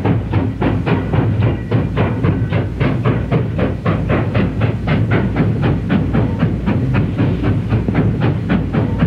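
Steam locomotive running, with a steady rapid beat of about four to five strokes a second over a low rumble.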